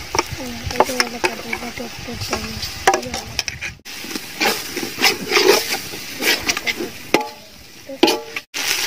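Steel spoon stirring ginger-garlic-green chilli paste into onions frying in ghee in a large aluminium pot, clinking and scraping against the pot as the mixture sizzles. The sound cuts out abruptly twice, about four seconds in and near the end.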